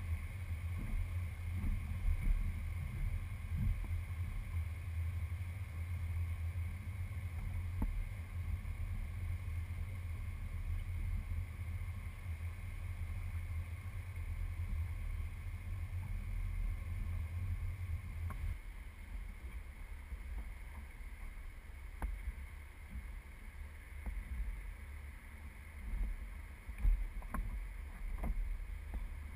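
A boat on a river: a low, steady rumble with wind buffeting the microphone. The sound shifts abruptly about two-thirds of the way through, and a few light knocks come near the end.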